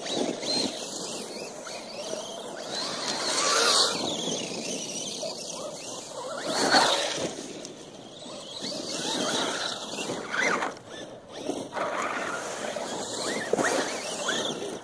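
Radio-controlled monster truck's motor whining up and down several times as it drives past, with its tyres throwing up dry leaves near the end.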